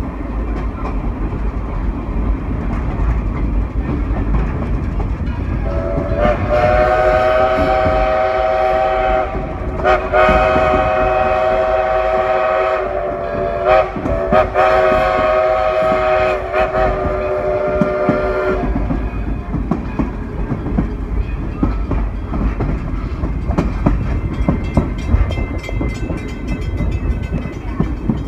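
Steam locomotive's whistle blown in several long blasts with short breaks, sounding several notes at once, over the steady rumble and clickety-clack of the wheels on the rails, heard from aboard an open passenger car.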